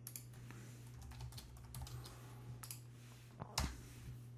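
Faint typing on a computer keyboard: a run of quick key clicks, with one louder keystroke about three and a half seconds in as the command is entered.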